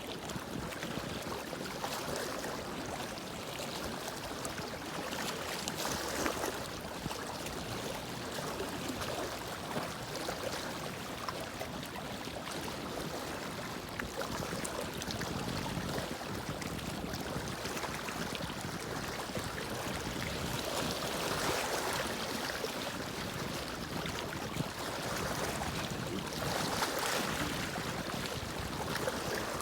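Water lapping and washing with wind: a steady wash of noise that swells gently every few seconds.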